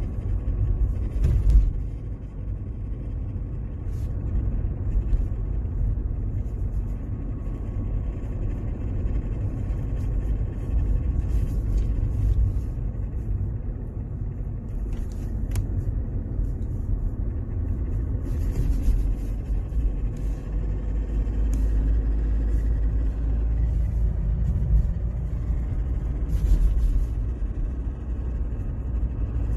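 Mercedes-Benz W203 running with a steady low rumble and a few short rattles or clicks, about five times. This is the noise the owner attributes to the gearbox.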